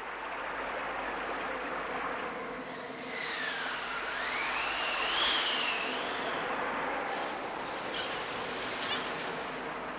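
Surf and waves washing onto a shore, a steady rushing sound effect, as the boat comes in to land. Across the middle a whistling tone glides down, up and down again.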